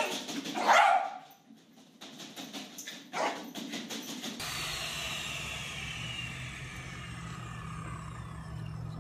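A corgi barking twice, about a second in and again near three seconds in. Then a steady low hum with a faint whine slowly falling in pitch.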